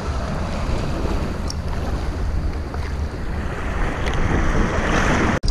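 Rough sea surf washing and breaking around rocks, heard from right at the water surface, with wind buffeting the microphone. A wave surges louder near the end, and the sound drops out for an instant just before the end.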